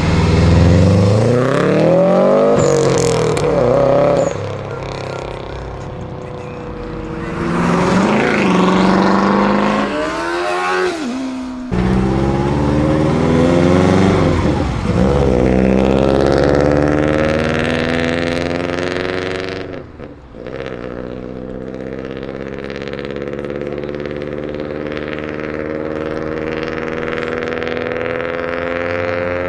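Modified Subaru Impreza flat-four engines revving and accelerating away, the pitch climbing and dropping through several bursts of throttle. Near the end one car's note rises more steadily as it pulls away down the road.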